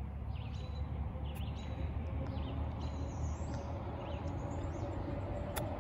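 Birds chirping over a steady low outdoor rumble, and about five and a half seconds in, a single sharp click of a wedge striking a golf ball on a chip shot.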